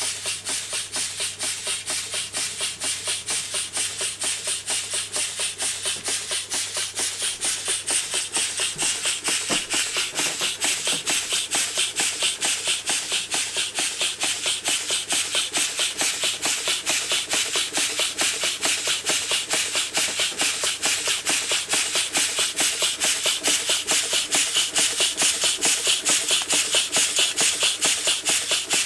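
Schoenner Lipsia toy steam engine running steadily, its cylinder exhausting steam in rapid, even chuffs, several a second, growing slightly louder toward the end.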